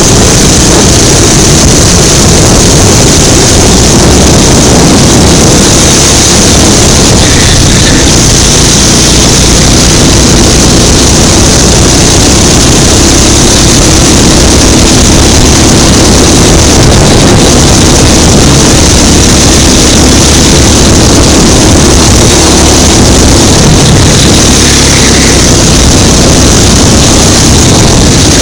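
Go-kart engine running hard at racing speed, loud and steady, picked up close by a camera mounted on the kart.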